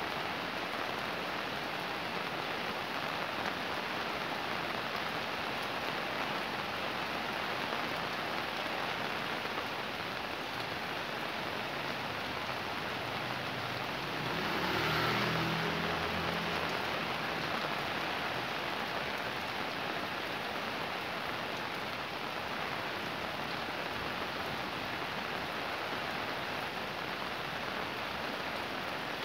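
Fairly heavy rain falling steadily. About halfway through, a low sound swells briefly, then fades.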